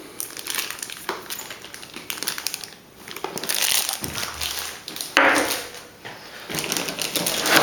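Laptop packaging being handled: crinkling plastic wrap and rustling cardboard in irregular bursts, with a sudden louder rustle about five seconds in and another near the end.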